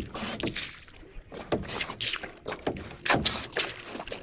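Hand bilge pump worked in repeated strokes, each stroke sending a splashing spurt of water out of the pump's outlet. The sound is the kayak's cockpit being pumped dry of the water taken on during a self-rescue.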